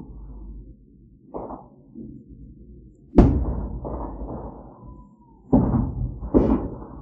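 Fireworks exploding: a small pop about a second and a half in, the loudest bang about three seconds in with a rumble dying away after it, then two more bangs in quick succession near the end.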